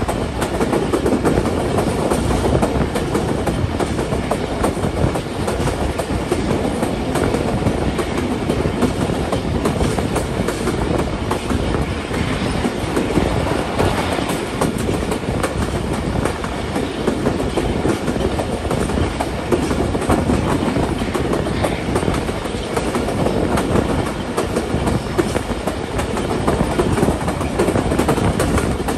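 Passenger train coaches running at speed, a steady rumble with wheels clattering on the rails, heard from an open window of a moving coach.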